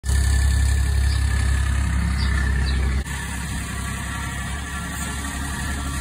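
Skid steer loader engine running steadily, clearing snow with a front-mounted snowblower attachment. About three seconds in the sound cuts abruptly to a somewhat quieter stretch of the machine running.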